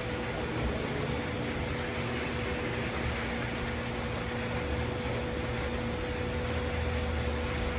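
Steady background hum with a constant low tone and an even hiss, unchanging throughout; no cutting or knocking is heard.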